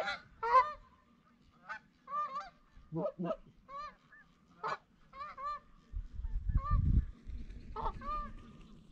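Canada goose honking: a run of short, rising two-note honks with a few deeper, lower notes mixed in. A low rumbling noise comes in about six seconds in.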